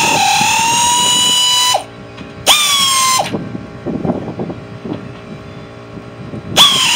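Power drill running in bursts with a steady whine that sags a little in pitch as it starts, stopping about two seconds in, running briefly again, and starting once more near the end. Knocks and clatter of metal parts fill the gaps.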